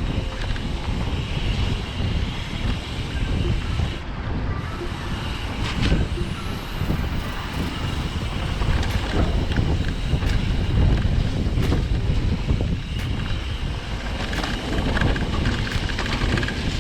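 Wind buffeting the camera microphone and tyre rumble as a mountain bike is ridden down a trail, with scattered sharp clicks and rattles from the bike.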